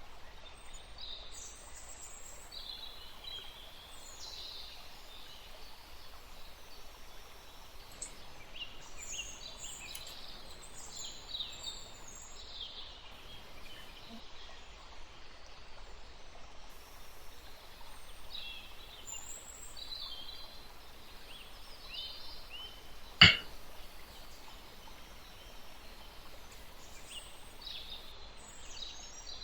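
Small birds chirping in the background: many short, high chirps over a faint steady background noise, with one sharp click about 23 seconds in.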